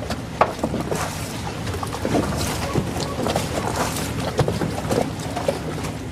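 Boat running with a steady low engine drone, river water splashing and slapping in irregular knocks several times a second.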